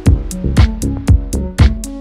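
Background music: an upbeat electronic track with a steady drum-machine beat and bass line.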